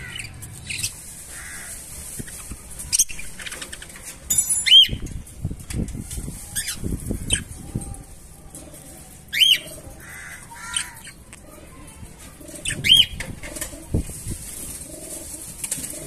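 Budgerigars calling in short, sharp chirps every few seconds, with a stretch of wings fluttering in the middle.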